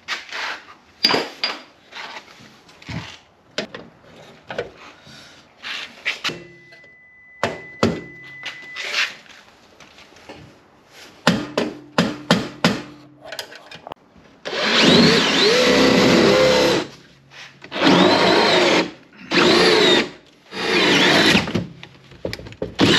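Cordless drill drilling the cable entry hole, running in four bursts under load with its pitch wavering. Before it, a scatter of knocks and taps, with a quick run of taps about two-thirds of the way through.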